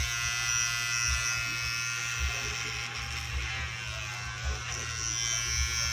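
Electric hair clipper running steadily with a constant buzz as it cuts hair at the side of the head.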